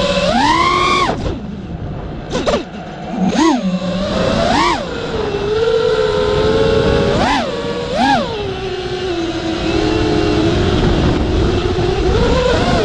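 RC car's motor running, with a steady whine that is revved up sharply about half a second in, then given several short quick blips of throttle before settling back to a steady pitch.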